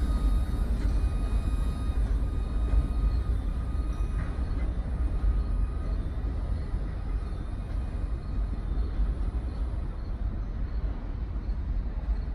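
New York & Atlantic Railway freight train rolling away along the track, a steady low rumble that slowly fades as it draws off.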